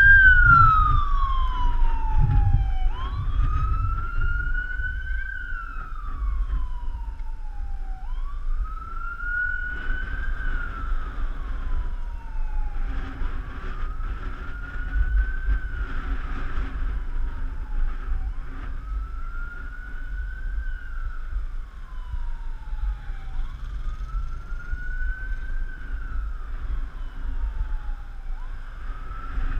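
Fire engine siren on a slow wail, rising and then falling in pitch about every five seconds, loudest at first and gradually fading. Wind buffets the microphone underneath.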